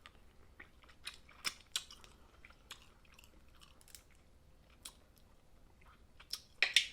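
Close-up eating of snow crab: irregular sharp clicks and crackles of crab shell being handled and cracked, with chewing, and a louder cluster of cracks near the end.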